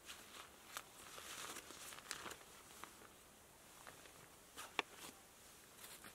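Faint rustling and crinkling of a fabric pouch being handled, with scattered small clicks and one sharper click about five seconds in.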